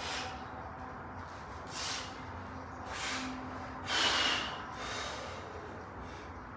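A weightlifter's sharp, forceful breaths, about five of them, as he braces under a loaded barbell before a back squat; the loudest comes about four seconds in.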